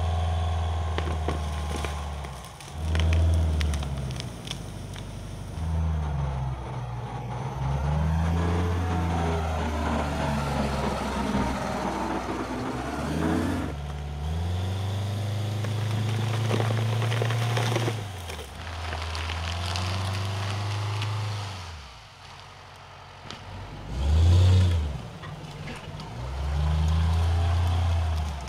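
Oshkosh LVS heavy truck's Detroit Diesel 8V-92 two-stroke V8 diesel revving up and easing off again and again as it strains to pull out a tree stump on a tow strap. Underneath runs crackling and rustling from the stump's roots and branches tearing loose, with a short loud surge about 24 seconds in.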